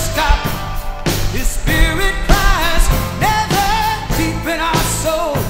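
Rock song with sung vocals over a full band backing.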